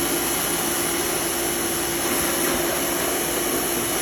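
Suyncll electric pressure washer running, its motor humming at a steady pitch under the loud, even hiss of the water jet spraying.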